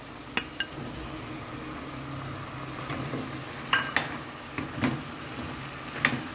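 Cubes of carne de sol and pequi sizzling in a metal pot, with a metal spoon stirring and clinking against the pot a few times, several of the clinks coming close together around the middle.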